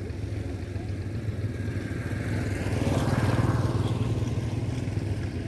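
An engine running steadily with a low, pulsing hum, growing louder about halfway through, then easing back.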